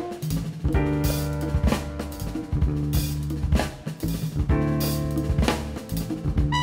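Music from the dance score: a drum kit plays repeated hits over a steady sustained bass line, with new held notes coming in at the very end.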